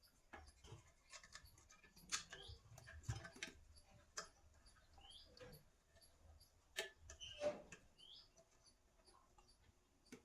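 Quiet scattered clicks and light knocks, with short high chirps of a small bird recurring every second or two in the background.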